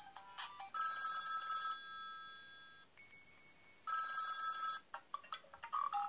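Preloaded ringtones on an HTC ChaCha, previewed through the phone's small speaker. A bell-like electronic ring sounds twice, about three seconds apart. About five seconds in, a different tone of quick chiming notes starts.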